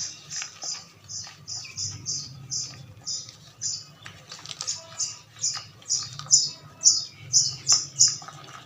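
Dyed chalk and cornstarch powder being squeezed and pressed, giving short high squeaks about two a second with soft crunching between them, louder in the second half.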